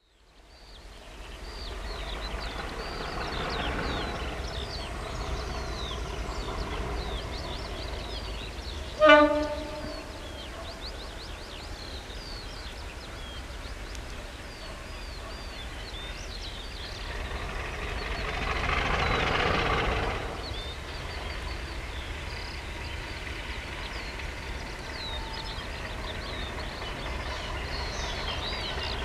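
Birds singing over a steady low rumble, with one short, loud blast of a diesel locomotive horn about nine seconds in, the Class 50's horn sounding in the distance. The background noise swells twice, briefly, near the start and about two-thirds of the way through.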